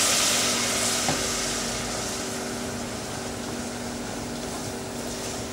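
Chicken stock hitting a hot blond roux in a stainless steel saucepan, hissing and sizzling hard at first and slowly dying down as it is stirred in with a wooden spoon, over a steady low hum.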